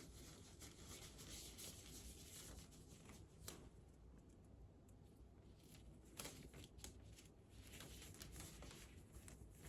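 Faint rustling and crinkling of sterile gloves being pulled on, with a couple of sharp snaps or clicks, the clearest about three and a half and six seconds in.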